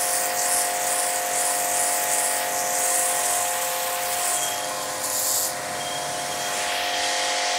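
Pressure washer running steadily: the pump's motor gives a constant hum while the narrow water jet hisses against concrete. The hiss swells and fades as the jet is swept back and forth, and is briefly louder about five seconds in.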